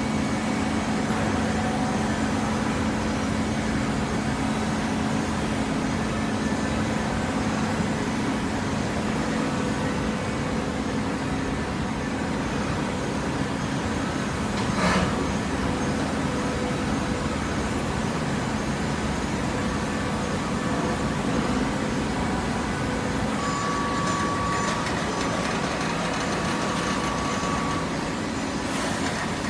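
Hydraulic baler running with a steady mechanical hum, with one short sharp knock about halfway through.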